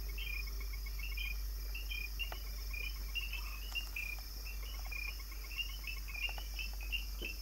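Night-time rainforest ambience: many short, high chirps repeating unevenly over a steady insect hiss, with a low steady hum beneath.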